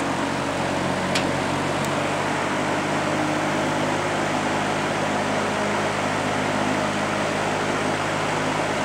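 A 1960–62 GE W-13 electrically reversible box fan running steadily in reverse (exhaust), a constant rush of air over a low, even motor hum.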